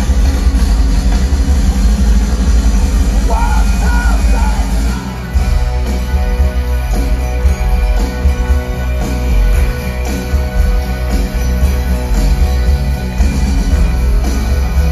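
A live rock band playing loud, with a heavy low end, and a voice singing a short phrase about three seconds in.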